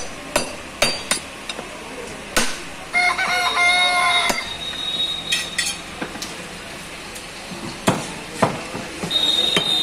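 Sharp knocks of a butcher's knife against a wooden chopping block as beef is cut, coming irregularly. A long pitched call is heard about three seconds in.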